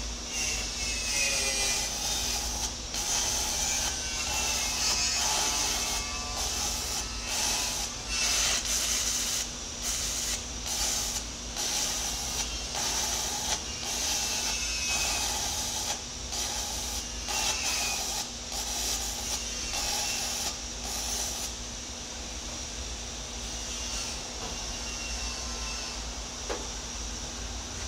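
Electric arc welding on a steel excavator bucket's teeth: a frying crackle that breaks off and restarts many times as the arc is struck and broken, ending about three quarters of the way through. A steady low hum runs underneath.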